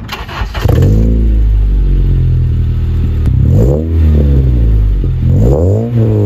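A 9th-gen Honda Civic Si's 2.4 L K24 four-cylinder, breathing through a Full-Race catback and a Skunk2 catless downpipe, is started at the tailpipe. The starter cranks and the engine catches under a second in, flaring and then settling to idle. The throttle is then blipped twice, the exhaust note rising and falling each time.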